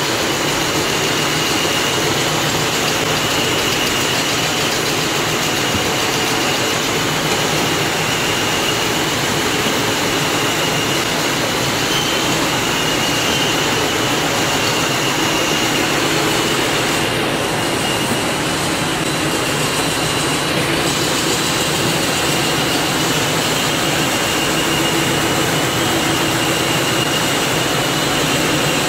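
Besta SK-520S CNC wood rotary cutting machine (veneer peeling lathe) running steadily while peeling a log into veneer: a continuous mechanical noise with a thin, steady high whine.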